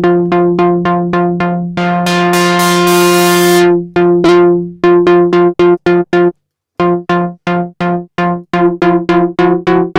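Native Instruments Monark, a Minimoog-style monophonic software synth, playing fast repeated bass notes on one pitch, about four or five a second. About two seconds in one note is held longer and turns much brighter, and there is a short break past the middle before the quick notes resume.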